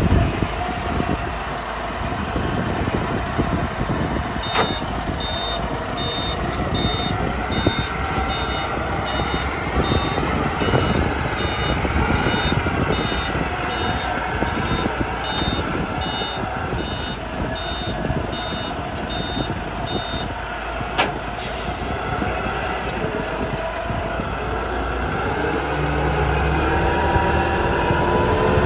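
Heavy vehicle engine running steadily while a reversing alarm beeps at an even pace for about fifteen seconds, starting a few seconds in. A couple of sharp clicks are heard, one as the beeping starts and one just after it stops.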